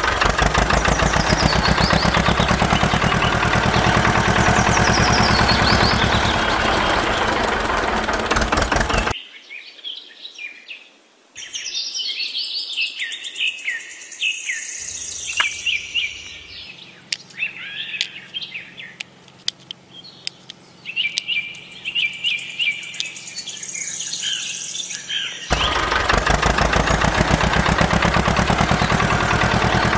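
A small engine running with a fast, even firing rhythm, which cuts off abruptly about nine seconds in. Birds then chirp and twitter, with a few sharp clicks, for about sixteen seconds, before the engine sound returns suddenly near the end.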